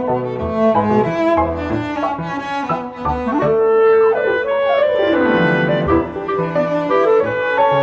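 Instrumental background music, with notes changing in steps and a long downward slide in pitch about five seconds in.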